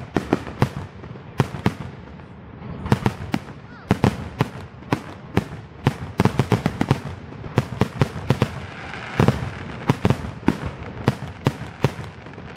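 Fireworks display: aerial shells bursting in a rapid, irregular string of sharp bangs, coming thicker in the second half.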